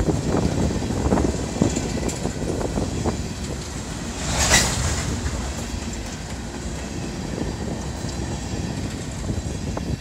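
Empty coal hopper cars of a long freight train rolling past, with wheels rumbling and clacking. About halfway through there is a brief, sharp metallic squeal.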